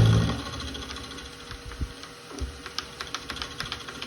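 Milling machine taking a light cut in metal. A low thump at the start, then irregular sharp ticks from the cutter, several a second and growing more frequent, over a faint steady hum.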